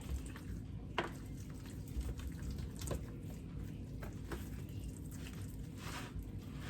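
Gloved hands rubbing mustard and liquid smoke into a rack of ribs: faint wet squishing with a few light clicks.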